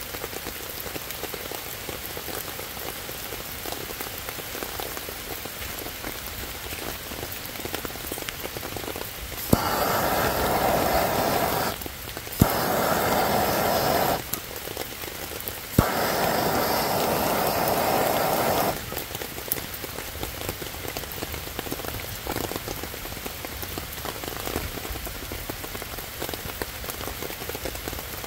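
Steady rain pattering on leaves and wet ground. Three times, about ten, twelve and sixteen seconds in, a butane torch lighter clicks alight and its jet flame hisses loudly for two to three seconds while it is held to wet kindling to start a fire.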